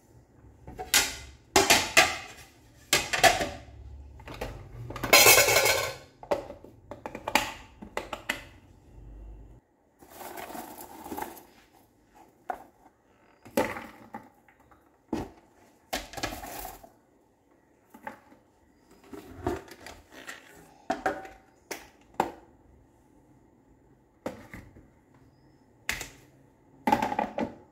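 Crisp fried snacks and popcorn being handled and placed into lunchbox containers. Irregular crackly rustles and light clicks and taps on the steel and plastic boxes come in short bursts, busiest in the first third.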